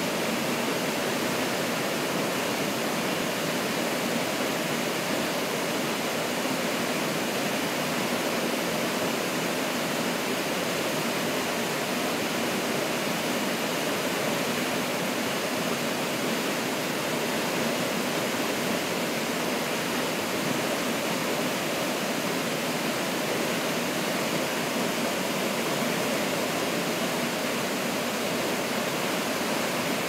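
Waterfall plunging into a rock pool: a steady, unbroken rush of falling water.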